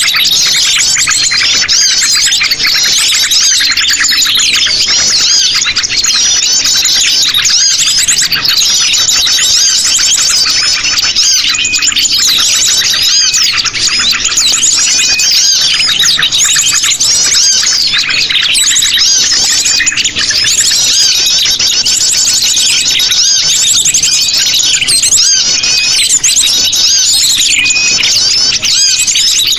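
Sogon sunbirds calling in a dense, busy chorus of high, rapid chirps and twitters with no pause. This is a bird-trapping lure recording of the agitated calling known as sogon ribut.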